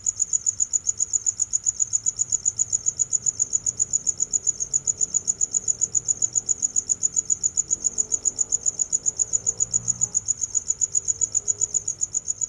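Cricket chirping: a high-pitched note pulsed in a fast, perfectly even rhythm, several chirps a second, without a break.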